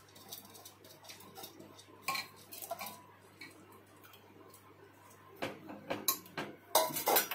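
Steel bowl clinking and scraping against the rim of a pressure cooker as soaked rice is tipped into the milk, with scattered small knocks. A few louder metal clanks come near the end.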